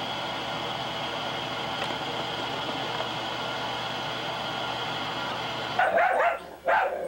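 Steady hiss of a television showing a blank, static screen, then, after a sudden change about six seconds in, a dachshund barking in two quick loud bursts.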